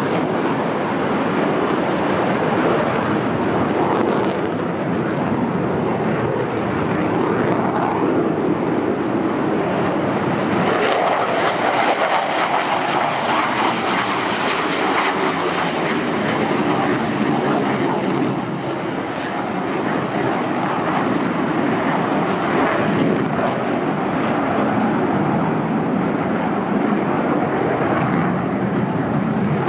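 Loud, continuous jet roar of McDonnell Douglas F-15C Eagles taking off, their Pratt & Whitney F100 turbofans at takeoff power. The roar shifts higher about 11 seconds in and dips briefly around 18 seconds in.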